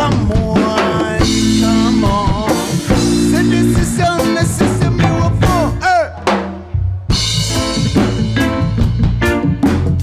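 Live reggae band playing an instrumental passage: drum kit with snare rimshots and bass drum over a bass line, with a melodic lead line bending in pitch. The music thins briefly about six seconds in, then the full band comes back.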